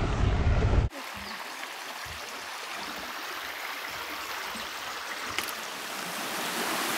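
Wind buffeting the microphone for about the first second, then, after an abrupt cut, a shallow forest creek running and burbling steadily over stones, growing a little louder near the end.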